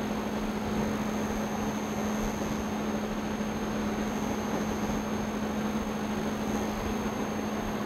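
Steady room noise with no speech: an even hiss over a low, steady hum and a thin high whine, the kind left by air conditioning and an open microphone.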